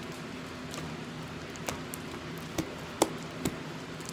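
Sticky glitter-glue slime being kneaded and pulled apart by hand, giving a few sharp wet pops and snaps as it tears away from the fingers, the loudest about three seconds in. The slime is still sticky from the glitter glue mixed into it.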